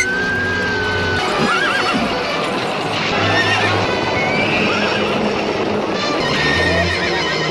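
Horses whinnying with hoofbeats, over background music.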